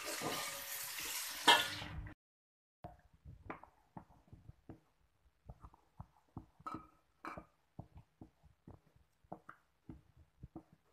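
Pea eggplants, chillies and anchovies sizzling in a wok while a spatula stirs them, with one sharp scrape about a second and a half in. The sizzle cuts off near two seconds, and a spoon then mashes cooked rice in an aluminium rice cooker pot, giving faint, irregular soft knocks against the pot.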